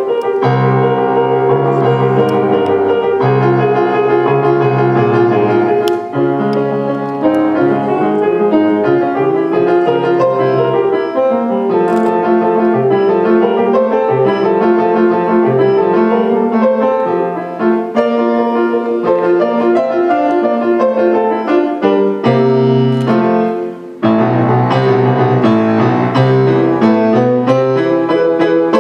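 Solo grand piano playing a continuous stream of notes, bass and melody together, with a short break about three-quarters of the way through.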